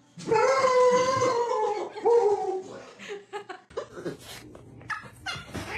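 A person laughing hard: a long, high-pitched squeal first, then short broken bursts of laughter.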